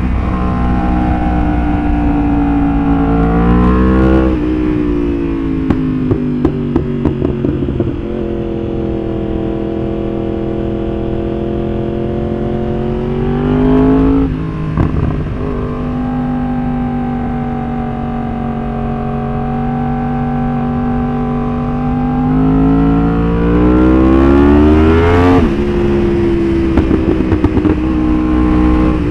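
Yamaha R1's inline-four engine under way, rising in revs and shifting up three times between stretches of steady cruising. Sharp pops and crackles come from the exhaust on the overrun about five seconds in and again near the end, from its pop-and-bang ECU tune.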